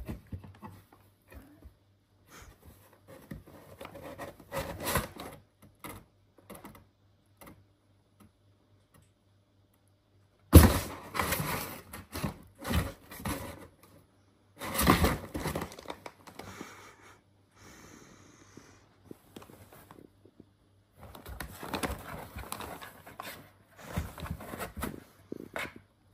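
Kitten scrabbling at and moving about a cardboard box: irregular bursts of rustling and scratching with short quiet gaps. The loudest is a sudden thump about ten seconds in.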